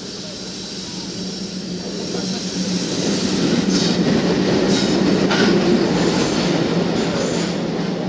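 Passenger express hauled by two ALCO diesel locomotives running into a station: the locomotives pass close with a steady engine drone, then the coaches roll by with wheels clattering over the rail joints. The sound builds to its loudest about five seconds in.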